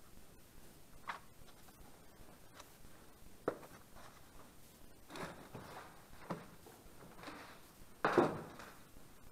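A few scattered, irregular knocks and scuffs in a quiet room, with the loudest, longer scrape near the end.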